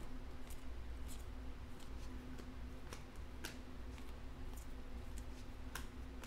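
Panini Mosaic football trading cards being flipped through by hand: scattered light clicks and flicks as the stiff cards slide off one another, over a low steady hum.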